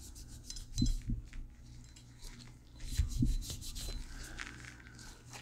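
A cloth rag rubbing over a Glock pistol slide in gloved hands, wiping off the sprayed solvent: soft, irregular rubbing with a couple of light knocks about one and three seconds in.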